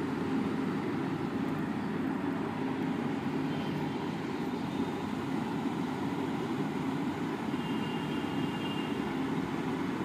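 Steady low background rumble with no clear events, with a faint high tone briefly near the end.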